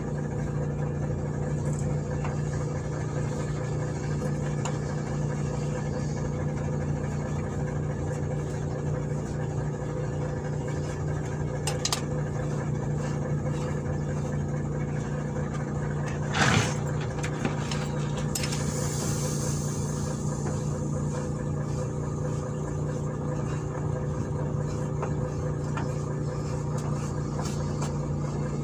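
An engine running steadily at idle, with a few sharp metal clinks, a louder clatter just past halfway, and a short hiss soon after.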